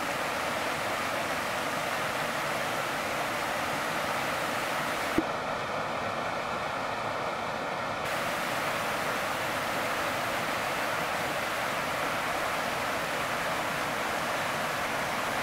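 Steady rush of a small mountain stream running and cascading over boulders, with a single sharp click about five seconds in.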